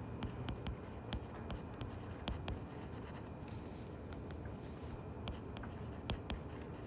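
Faint, irregular taps and scratches of a stylus on a tablet screen as a word is handwritten, over a low steady hum.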